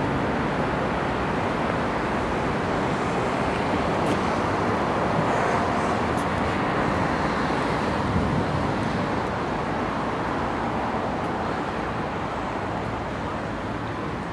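Steady road traffic noise: an even, continuous rushing hum with no distinct events.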